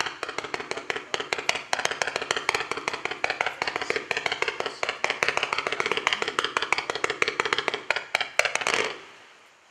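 Lidu LDA632 Air Garden firework cake firing its mine shots of red and blue stars and white strobes: rapid popping, several shots a second over a steady hiss, which dies away about nine seconds in as the cake finishes.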